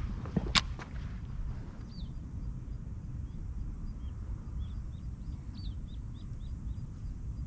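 Small birds chirping: short, high, quickly falling calls repeated every half second or so, over a steady low rumble of wind on the microphone. A sharp click, twice in quick succession, about half a second in.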